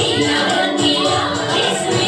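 Music with singing, steady throughout: the song accompanying a group dance.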